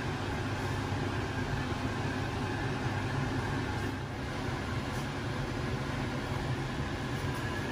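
Convection oven's fan and motor running, a steady low hum with airy whooshing noise.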